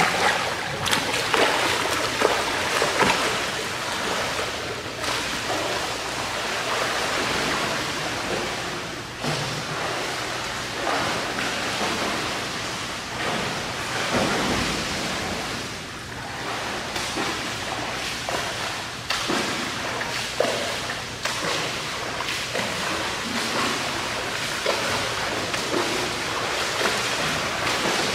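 Pool water splashing and churning from a swimmer's front-crawl strokes: a steady wash of water noise broken by uneven splashes.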